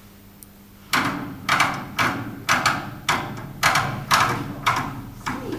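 Handheld spray gun fired in short hissing bursts, about two a second, starting about a second in.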